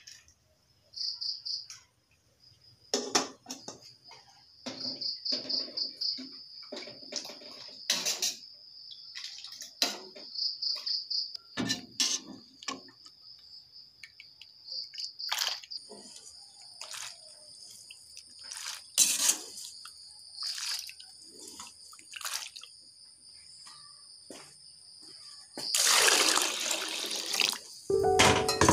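Kitchen utensils knocking and scraping against a stainless steel pot of boiled corn, a scattering of short sharp clinks, over a steady pulsing trill of crickets. Near the end, a brief splashing rush of water in the pot.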